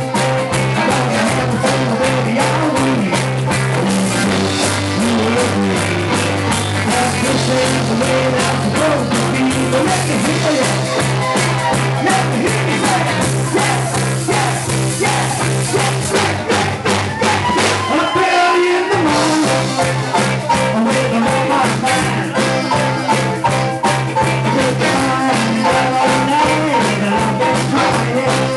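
Soul band playing live with drums, bass, guitar, saxophone and a singer. The bass drops out for a moment about two-thirds of the way through, then the groove comes back in.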